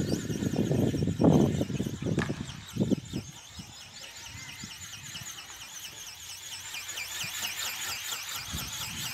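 High whine of a flying ornithopter's small electric motor and gearbox, wavering up and down several times a second as the wings flap. Low rumbles and bumps on the microphone fill the first three seconds.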